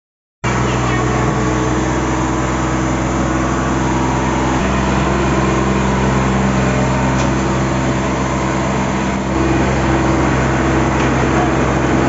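Kubota DC-35 combine harvester's diesel engine running steadily, a little louder from about nine seconds in.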